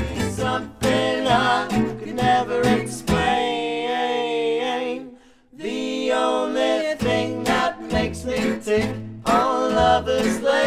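Gypsy jazz trio of two acoustic guitars and a plucked double bass playing: strummed chords with singing, held chords a few seconds in, a very short break, then the guitars' choppy la pompe rhythm over bass notes.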